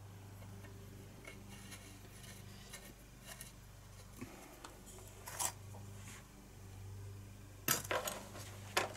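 Faint clinks and taps of metal tools and parts being handled on a steel workbench, with a louder cluster of knocks and clatter near the end; a steady low hum runs underneath.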